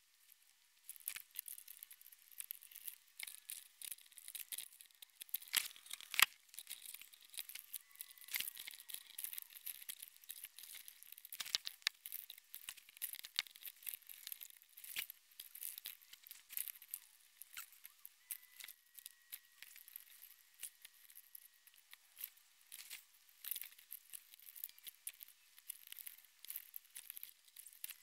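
Faint rustling and scattered small clicks of a car stereo wiring harness being handled and connected: loose wires and plastic connectors knocking together. One sharper click comes about six seconds in.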